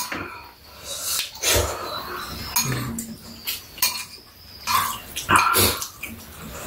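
Two people eating noodle soup: slurping and chewing, with metal spoons and chopsticks clicking against ceramic bowls now and then.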